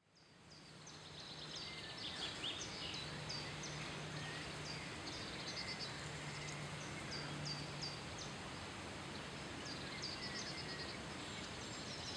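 Outdoor meadow ambience of birds singing: many short, high chirps repeating over a soft, even background noise, fading in over the first second or two.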